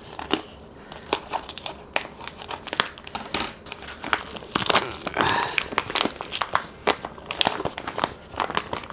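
Clear plastic bag around a raw pork shoulder being cut open and pulled off by gloved hands, crinkling and crackling irregularly in dense bursts.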